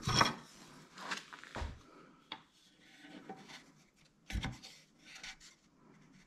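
Wood and a bar clamp being handled on a workbench: irregular rubbing and scraping, a sharp click a little over two seconds in, and a heavier knock about four seconds in.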